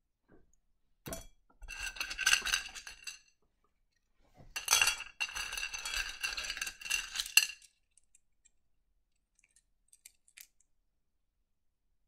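Small pieces of rough opal clinking against each other and the plate as fingers rummage through the pile, in two spells of rapid clicking, then a few odd clicks.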